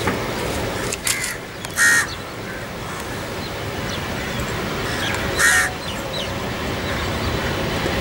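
Crow cawing: short harsh calls about two and five and a half seconds in, with a fainter one near the start. Beneath them a steady rumble slowly grows louder as the Boeing 777-300ER's GE90 jet engines draw near on its landing approach.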